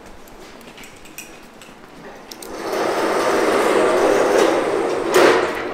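A few light clicks of tools, then a loud, rough machine noise for about three seconds that ends in a sharper burst near the end.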